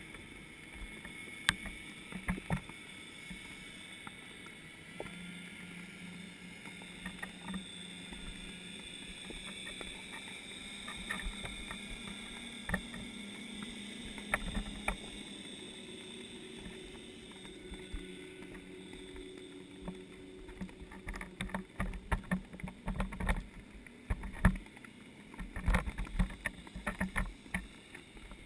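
Underwater sound picked up by a camera submerged in a lake: a steady hum carrying a few held tones that slowly shift in pitch, with scattered sharp clicks and low knocks that become frequent over the last third.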